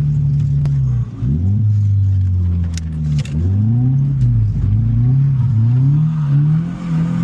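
Scion car engine revving hard. Its pitch drops sharply and climbs back twice, about a second in and about three seconds in, then rises and falls over and over as the throttle is worked, as when driving a car sideways.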